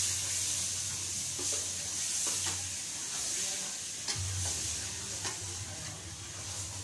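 Meat and masala sizzling as they fry in an aluminium pot, while a metal ladle stirs them, knocking and scraping against the pot several times.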